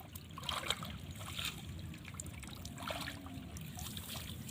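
Water trickling and splashing in the shallows, with a few short splashes or sloshes about half a second, one and a half seconds and three seconds in.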